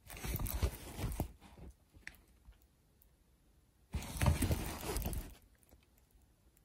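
Rustling handling noise in two bursts of about a second and a half each, one at the start and one about four seconds in.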